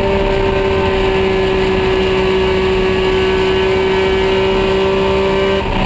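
Porsche GT3 R race car's flat-six engine heard from inside the cockpit under way, holding a loud, steady, nearly constant note that sinks slightly in pitch. Near the end the note breaks off and changes.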